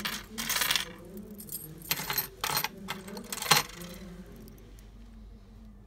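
Metal key blanks and chrome keychains with split rings clinking and jangling as they are picked up and shifted about in a pile. There is a short burst of rattling just after the start and separate sharp clinks about two and three and a half seconds in, the last the loudest. It dies down after about four seconds.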